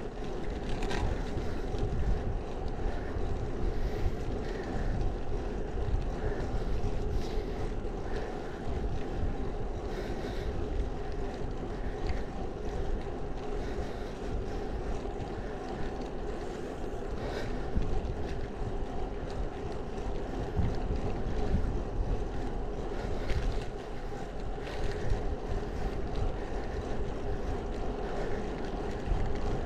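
Wind rushing and buffeting on the camera microphone of a moving bicycle, over the steady rolling noise of its tyres on an asphalt street.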